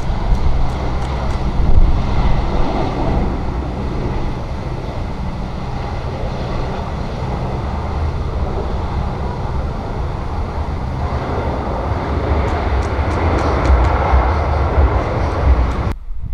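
Jet engine rumble of a Boeing 737-800 with CFM56 turbofans, landing and rolling out on the runway. The noise holds steady, swells again about eleven seconds in, and cuts off abruptly just before the end.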